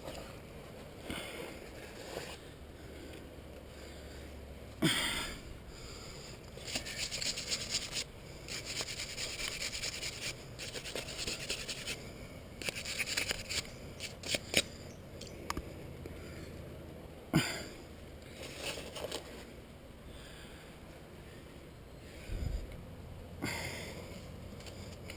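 Hands and shoes scraping and scuffing on rough rock during a climb, with two sharp knocks, one about five seconds in and one about seventeen seconds in.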